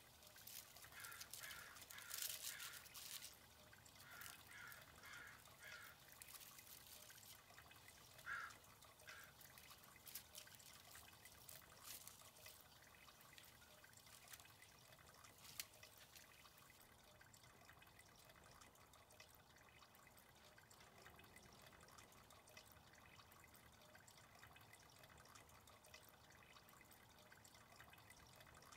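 Faint trickling and dripping water with scattered light clicks. A bird calls in short runs of four or five notes three times in the first ten seconds, then only a faint steady hiss remains.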